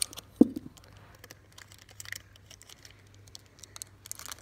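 Scissors snipping the top off a foil trading-card pack, with one sharp snip about half a second in, followed by faint crinkling and small clicks of the foil wrapper being handled.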